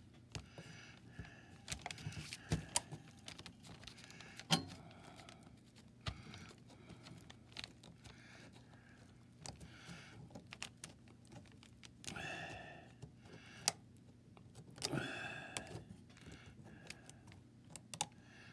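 Light, irregular clicks and ticks of thin copper gasket sheet being worked by fingers and fingernails, as the folded-over copper edge of a Caterpillar Sixty head gasket is bent back flat. A couple of longer sounds come about twelve and fifteen seconds in.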